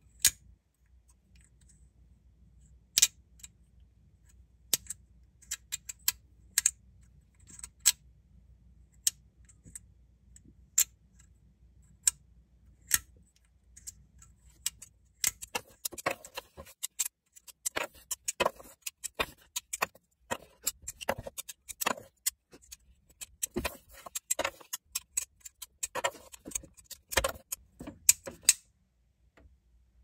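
Sharp plastic clicks and snaps from a PopSockets PopPuck fidget toy as its pucks are pushed, popped out and snapped back in: single clicks every second or two at first, then quick runs of clicking from about halfway through, stopping shortly before the end.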